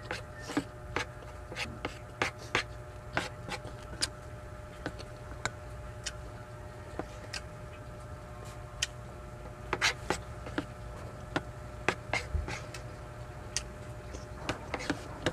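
Close-up eating sounds: a wooden spoon clicking and scraping on a tray as rice and sardine are scooped up, with mouth sounds of chewing. The sharp, irregular clicks come about one to three a second, over a steady faint hum.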